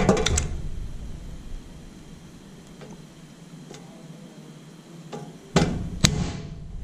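Hand-lever sheet-metal hole punch working on a sheet-metal toolbox. A few clicks at first, then a quiet stretch with faint ticks. About five and a half seconds in comes a clatter of metal, followed by a sharp snap as the punch goes through the sheet.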